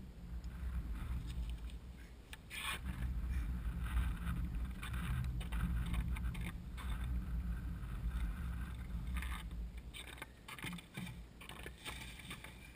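Steady low wind rumble on the microphone, with scattered scuffs and crunches of boots walking on bare lake ice.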